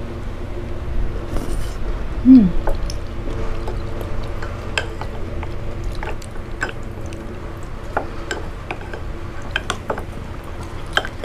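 Eating lomi noodle soup: wet slurping and chewing of noodles, with scattered light clicks of wooden chopsticks and spoons against glass and ceramic bowls. A short, low, falling hum from one of the eaters about two seconds in is the loudest sound.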